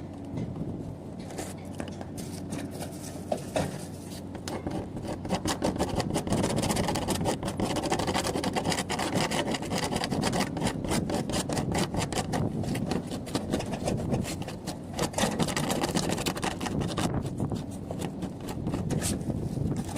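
Rapid, continuous scraping strokes on a hard surface. They get busier and louder about five seconds in and ease off a few seconds before the end.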